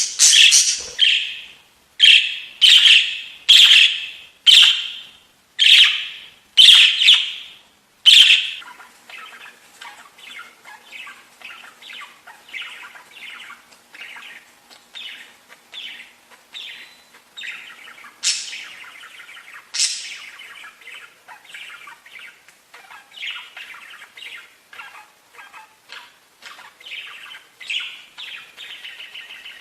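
Budgerigars calling: a run of loud, harsh calls about once a second, then from about eight seconds in a quieter, continuous warbling chatter of short chirps, broken twice by sharper louder calls.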